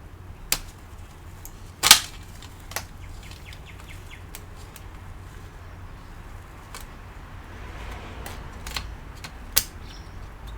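Sharp clicks and snaps of a metal shield cover being pried off a laptop's board over the RAM. The loudest snap comes about two seconds in, followed by a quick run of faint ticks and two more clicks near the end.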